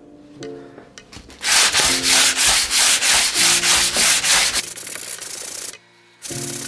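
Hand sanding cured fairing compound on a door edge with a hand-held sanding pad and hook-and-loop sanding disc: quick back-and-forth scratchy strokes, about four a second, that turn softer about three seconds later and stop. Background music plays at the start and near the end.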